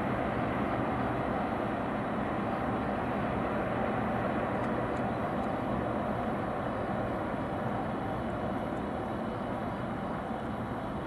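Steady distant rumble of city vehicles and trains, easing slowly.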